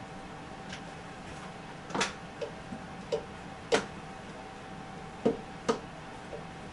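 Scattered light clicks and knocks of parts being handled and fitted, about eight in all, over a faint steady hum.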